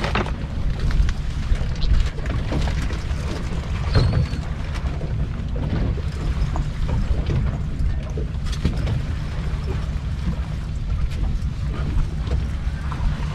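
Wind buffeting the microphone as a steady low rumble, with scattered short knocks and clicks on top.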